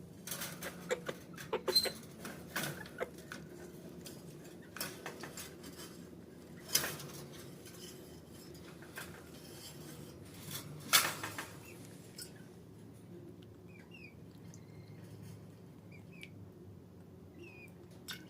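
A chicken's beak pecking and tapping against its water dish as it drinks: a run of irregular clicks and knocks, the loudest about two, seven and eleven seconds in. After that come only a few faint short chirps.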